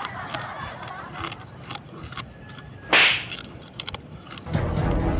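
Close-up crunching and chewing of crispy spiny sea urchin, with scattered sharp clicks. A single loud, sharp whoosh comes about three seconds in, and background music starts near the end.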